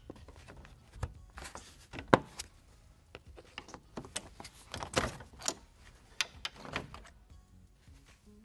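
Plastic push clips being pried out of a 2013 Dodge Ram 1500's plastic radiator dust cover with a screwdriver, and the cover being lifted off: a series of irregular clicks and plastic knocks.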